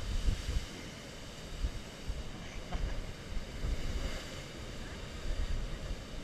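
Heavy surf breaking against a rocky sea cliff, with gusts of wind buffeting the microphone.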